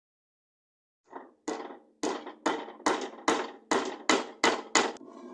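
Hammer tapping on a road bike's rear hub while its sealed cartridge bearings are replaced. About ten sharp metallic strikes, roughly two to three a second, come a little faster toward the end.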